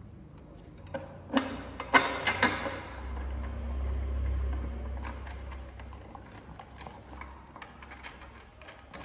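Hard plastic tricycle parts being handled and fitted together: a run of sharp knocks and clicks between one and three seconds in, then scattered lighter clicks. A low rumble runs through the middle for a few seconds.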